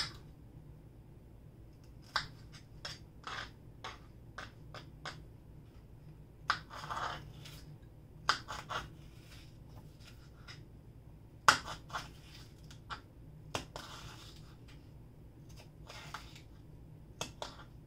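A kitchen knife cutting bell peppers into cubes on a cutting board: irregular sharp taps of the blade hitting the board, some with a short crunching, scraping stroke through the pepper, and brief pauses between runs of cuts.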